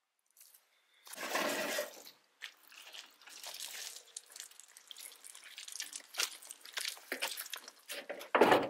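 Irregular scraping and crunching on gravelly dirt while a wheelbarrow loaded with concrete blocks is handled, with a long rushing scrape about a second in and a heavy clunk near the end.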